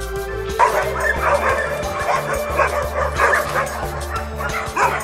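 Many dogs barking and yelping at once, starting about half a second in, over background music.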